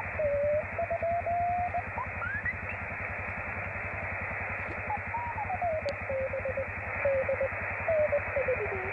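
Morse code call letters from a low-power 10 GHz microwave beacon, heard as a keyed tone over steady hiss from a radio receiver's speaker. The tone's pitch wanders up and down because the homemade receiving gear is still warming up and drifting. A brief rising whistle comes about two seconds in.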